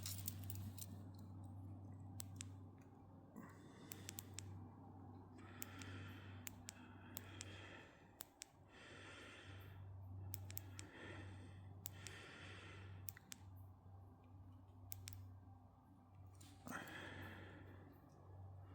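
Near silence: soft breathing close to the microphone in several slow breaths, with a few faint clicks over a low steady hum.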